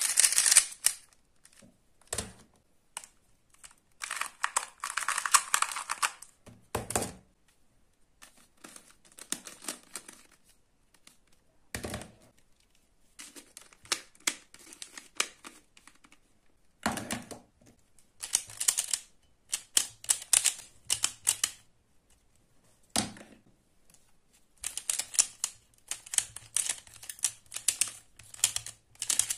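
Plastic twisty puzzles (Rubik's-type cubes and a pyramid-shaped puzzle) turned by hand: bursts of rapid clicking as the layers are twisted. A few single duller knocks fall between the bursts.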